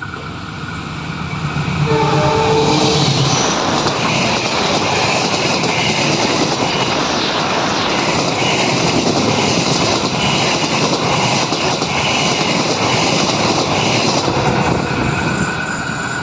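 Argo Bromo Anggrek express train passing close at speed. Its horn sounds briefly about two seconds in, then comes the loud rush of the passing carriages with a regular clatter of wheels over the rail joints, fading away near the end.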